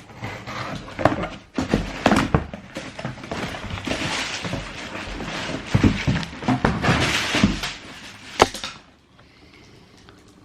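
A cardboard shoebox being opened and handled: uneven rustling with several sharp knocks, stopping about nine seconds in.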